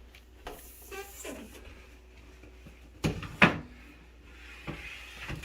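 Knocks and thumps of a countertop microwave oven being handled and set down. The loudest is a pair of heavy knocks about three seconds in, with a few lighter knocks before and after.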